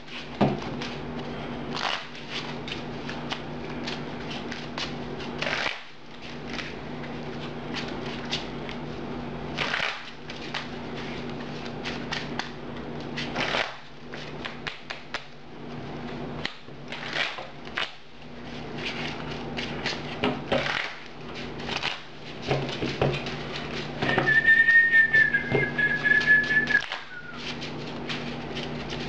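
A person whistles one held note for about three seconds, starting about 24 seconds in. Before it, playing cards click and tap on the table over a steady low electrical hum.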